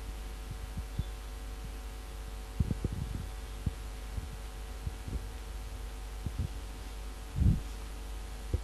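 Steady low hum with scattered soft, dull thumps, the loudest about three-quarters of the way through: handling noise from the camera being moved in close.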